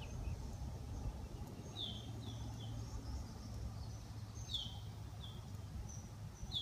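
Birds chirping: short, high, falling notes in small groups of two or three, every couple of seconds, over a steady low background rumble.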